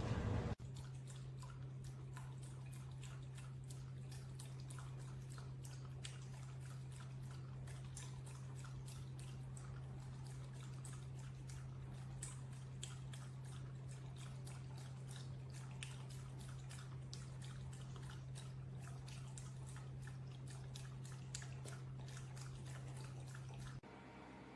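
Electric pet water fountain running: a steady low pump hum with water dripping and trickling in many small irregular drops.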